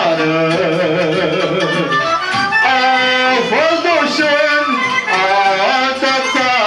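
Folk-style Romanian song music: an ornamented, wavering lead melody over a steady rhythmic accompaniment.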